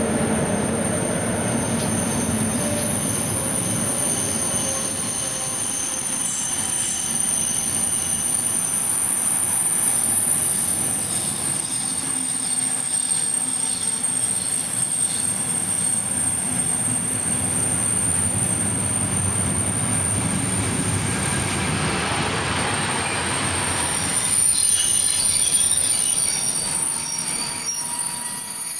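Freight train of container and tank wagons rolling past at close range: a steady rumble of wheels on the rails with a thin, steady high-pitched wheel squeal above it, growing a little louder and brighter near the end.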